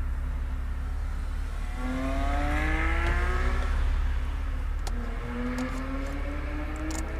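Car engine running with a steady low drone heard from inside the car; about two seconds in, the engine note rises in pitch for a couple of seconds, then climbs again from about five seconds on, as in gentle acceleration. A single click about five seconds in.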